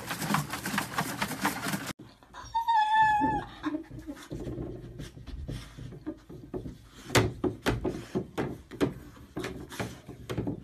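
A dog splashing and clattering about inside a plastic cooler for about two seconds. Then a single short meow from a cat, followed by scattered clacks and knocks of a plastic cat flap as a second cat pushes through it.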